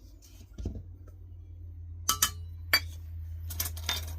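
Kitchen utensils clinking against a mixing bowl while cake flour is added: a few sharp clinks in the second half, then a quick cluster near the end. A low steady hum starts about half a second in.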